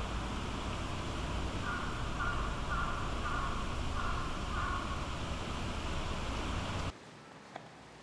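A crow cawing five times in a row, about two-thirds of a second apart, over steady outdoor background noise with a low rumble. The background noise cuts off suddenly near the end.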